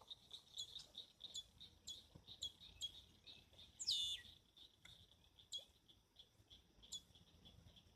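Insects chirping in a fast, steady pulse, with a single bird call falling sharply in pitch about four seconds in.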